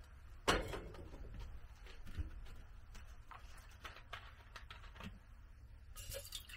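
A metal pot knocks down onto a gas stove's burner grate about half a second in, followed by small clicks and knocks as things are handled. Near the end, water starts pouring from a plastic bottle into the pot.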